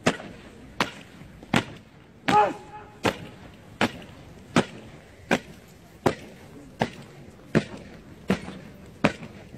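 Honour-guard soldiers' boots stamping in unison on stone paving as they march in step, a sharp stamp about every three-quarters of a second, about a dozen in all. A brief pitched sound, like a short shout, rides over one stamp about two and a half seconds in.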